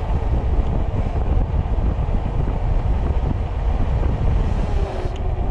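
Wind buffeting the microphone in a loud, rough rumble while riding a fat-tire e-bike downhill at about 26 to 27 mph, with a steady hum from the fat tires rolling on pavement.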